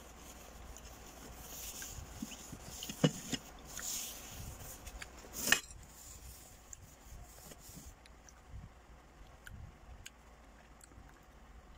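A person chewing and eating rambutan, with soft mouth and handling noises and two sharp clicks about three and five and a half seconds in.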